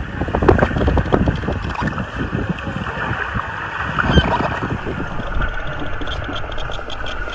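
Underwater sound from a hydrophone lowered beside the boat: a steady rush of water noise with scattered clicks and a few brief high calls, from the Type C killer whales around the vessel.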